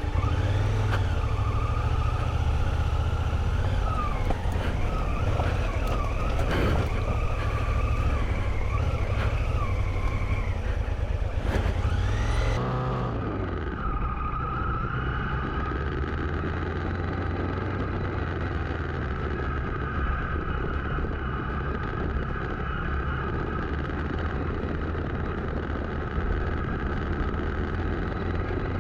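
Honda CRF1000L Africa Twin's parallel-twin engine running while the bike is ridden off-road, the revs rising and falling. About halfway through it changes to a steadier, more muffled drone.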